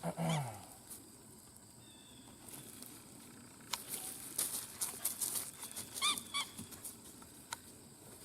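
Walking sounds outdoors: irregular rustling and sharp twig-like clicks underfoot, with two short high-pitched calls from an animal about six seconds in.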